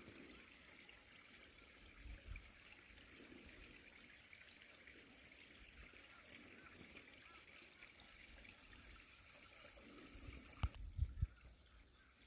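Faint, steady trickle of a small stream of running water, with a few dull thumps near the end.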